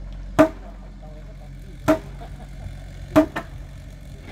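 Hammer blows on the timber beams of a hut frame: four sharp, ringing strikes, irregularly spaced, the last two in quick succession, over a low steady engine hum.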